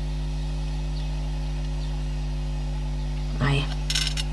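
Steady electrical hum with a low buzz. Near the end comes a brief vocal sound, then a short hiss.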